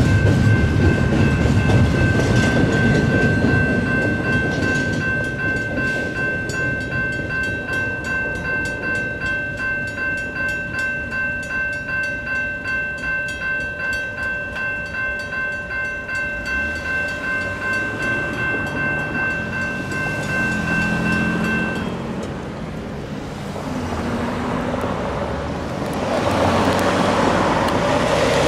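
Railroad crossing bells ring steadily, an electronic bell and a mechanical bell together, while the tail of a Union Pacific double-stack intermodal train rumbles and clatters past in the first few seconds. The bells cut off suddenly about three-quarters of the way through as the crossing's activation ends. Near the end a semi-truck's engine and tyres grow louder as it pulls over the crossing.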